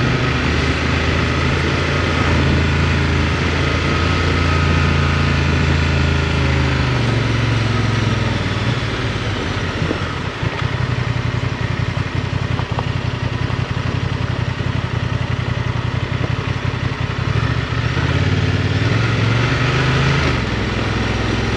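Adventure motorcycle engine running at low speed on a gravel road, over a steady rush of wind and tyre noise. The engine note holds steady for the first several seconds, drops away about eight or nine seconds in, and rises again near the end.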